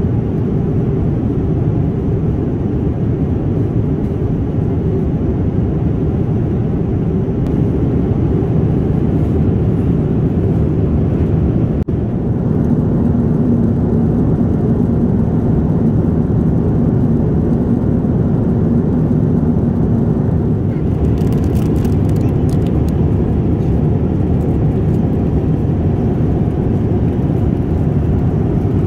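Steady low rumble of engine and airflow noise inside the cabin of a Boeing 787-9 airliner. A low steady hum rises over it for several seconds in the middle.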